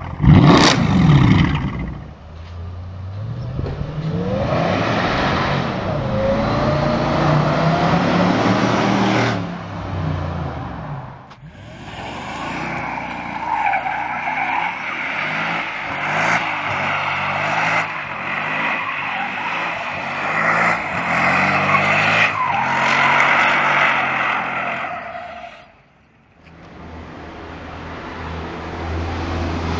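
Mercedes-Benz SL63 AMG V8: a sharp rev blip at the start, then the engine revving with its pitch rising and falling. A long stretch of tyre squeal with the engine held high follows as the car drifts round in donuts, and near the end the engine runs steadily at idle.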